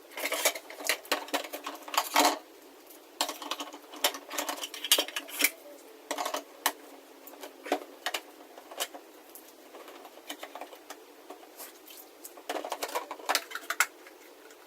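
Irregular clicks, knocks and short rustles of a capsule coffee machine's plastic parts and packaging being handled.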